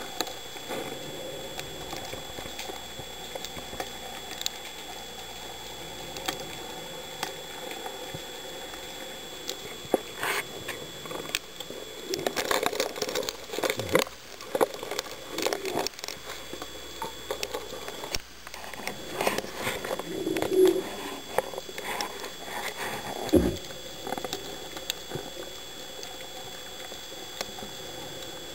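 Underwater sound picked up through a diver's camera housing: a steady hiss with a faint high whine, and scattered clicks and knocks that grow busiest in the middle.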